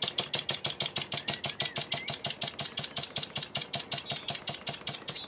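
Wig-Wag model engine running under the load of a belt-driven Baker fan, its exhaust beating in a rapid, even rhythm of sharp puffs, about eight a second.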